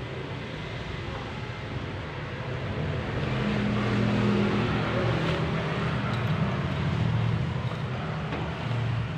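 A low, steady engine-like hum over background noise. It grows louder about three seconds in and eases off near the end.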